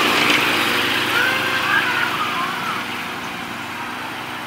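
Small engine of a miniature railway locomotive running steadily as the train passes close and draws away, fading over the last couple of seconds.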